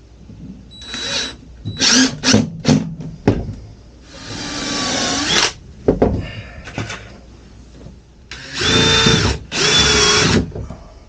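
Cordless drill driving screws in several bursts: a few short spins early, a longer run of about a second and a half in the middle, and two runs of about a second each near the end, each with a steady motor whine.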